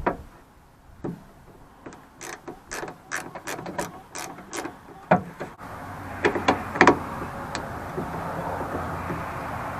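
A 1/4-inch ratchet clicking in short, irregular runs on the small Torx bolts that hold a pickup's tailgate backup camera. About halfway through, a steady background noise comes in.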